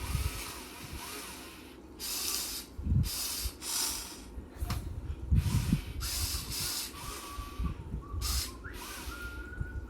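A Huina 1580 all-metal RC excavator at work: its electric motors whine in thin tones, some steady and some rising, over repeated half-second bursts of scraping noise and a few low thuds.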